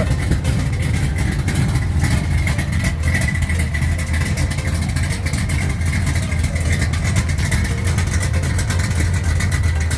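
Pushrod V8 engine idling steadily, its valve lash freshly reset on the number 7 cylinder after a backed-off rocker jam nut. It runs without the rocker knock, and its owner says it sounds good.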